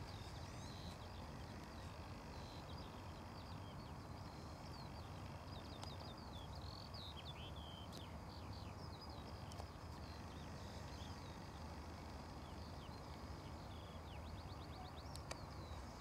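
Wild birds calling in open country, a scattering of short chirps and whistles with a quick rattling trill near the end, faint over a steady low rumble.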